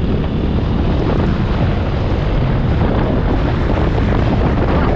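Steady wind rush buffeting the microphone of a moving motorcycle, with the bike's engine running underneath.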